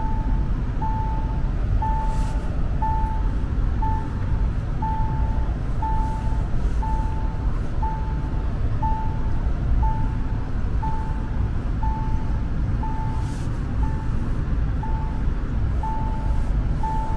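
A Mahindra Thar's seat-belt reminder chime beeps about once a second in a steady single tone, sounding for unbuckled occupants. Underneath is the low rumble of the engine and tyres on snow, heard inside the cabin.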